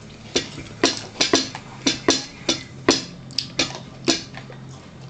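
A metal spoon clinking against a bowl while eating: about a dozen sharp, irregular taps, each with a short ring.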